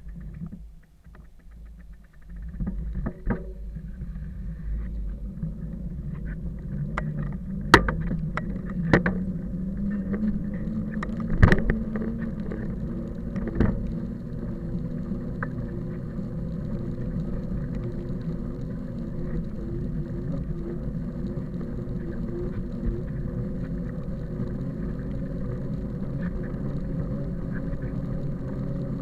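An engine running, picking up speed over the first dozen seconds and then holding a steady pitch, with a few sharp knocks in the first half.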